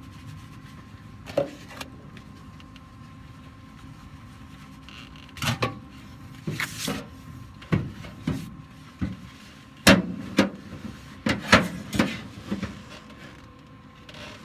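Scattered knocks, clunks and scrapes, about a dozen, from metal parts and tools being handled and set in place in a car's trunk, the loudest clustered in the second half. There is no steady welding crackle.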